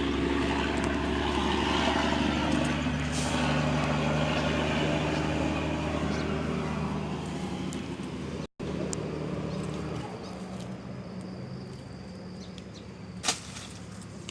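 An engine passing close by, loudest in the first few seconds and then fading away. The sound drops out for a moment about eight and a half seconds in; after it a quieter low hum continues, with one sharp click near the end.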